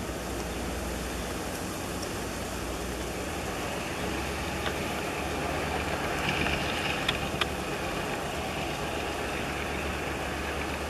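Taiwan Railway R113 diesel-electric locomotive hauling a freight train past at a distance: a steady low engine drone, with a few sharp clicks and a brief brighter rumble from the wheels around the middle.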